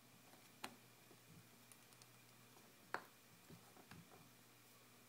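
Faint clicks and taps of an iPhone 4S back cover being fitted and slid into place on the phone: one sharp click just under a second in, a louder one about three seconds in, then a few softer taps.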